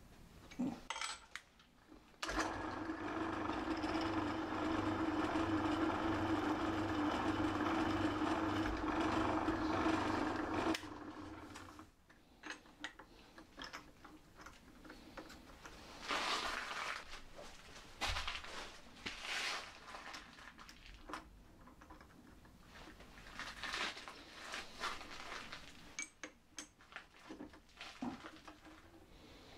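Pillar drill motor switched on, running steadily for about eight seconds while drilling a small aluminium pulley, then switched off and spinning down. After it, scattered metallic clicks and rattles as the chuck key loosens and tightens the drill chuck to change bits.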